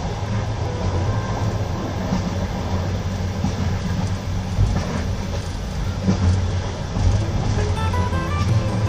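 Passenger train carriage running at speed, heard from inside: a steady low rumble of wheels on the track, with an occasional faint clack at rail joints.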